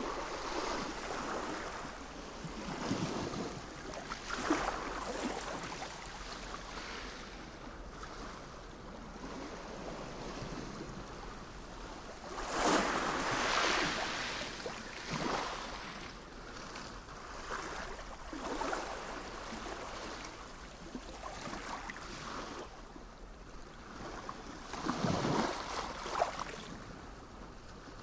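Sea waves breaking and washing onto the shore in irregular surges every few seconds, the largest about halfway through and another strong one near the end.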